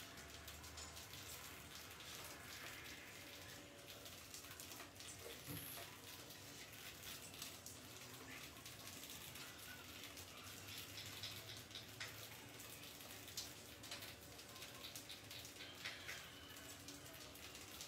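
Near silence: faint background noise with scattered soft ticks and clicks.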